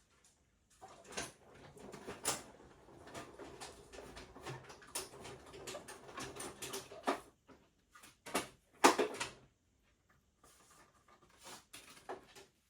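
Hand-cranked Stampin' Up Cut & Emboss machine feeding a card through a deep 3D embossing folder, with a steady grinding creak for about six seconds. A few sharp knocks and clatters follow, the loudest about nine seconds in, then light handling noise.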